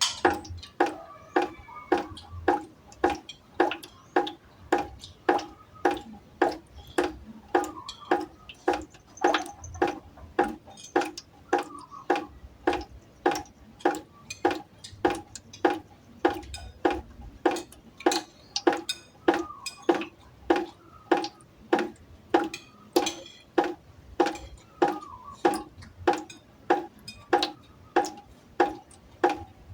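Water drops falling steadily into a pot, about three drops every two seconds, each drop giving a sharp plink with a short ringing note.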